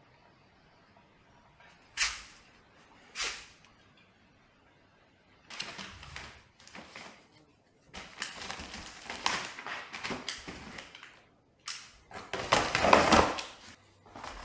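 Two sharp knocks about a second apart, then a cardboard parcel being opened and unpacked: the box flaps and contents handled and foam packing peanuts rustling in bursts, loudest near the end.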